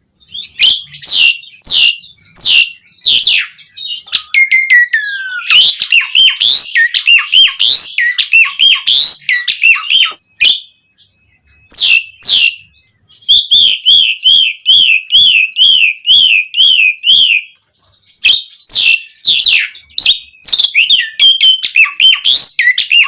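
Jalak suren (pied starling) singing loudly: a rapid string of sharp, downward-sweeping chirps and whistles, with a long falling whistle early on and a fast warbling trill of repeated notes in the middle, broken by brief pauses.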